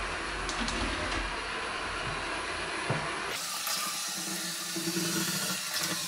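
Eufy robot vacuum running, its suction motor and brushes giving a steady whirring hiss as it drives itself back toward its charging dock. The sound shifts a little about three seconds in.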